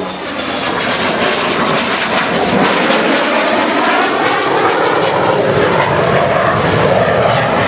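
Fixed-wing airplane engine running loud, building over about the first second and then holding steady, with a faint high tone falling slowly early on.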